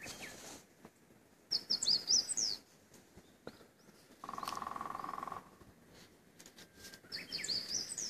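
Wild songbird singing a short, high phrase of quick rising and falling whistles, twice, with a rapid, even rattle about a second long in between.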